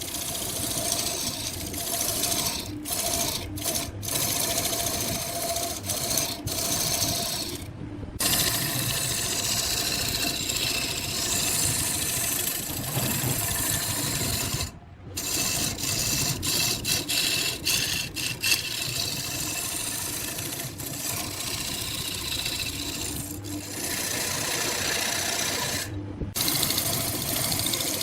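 Wood lathe running while a turning tool cuts into the spinning wood, giving a steady rasping hiss. The sound breaks off abruptly for a moment about 8, 15 and 26 seconds in.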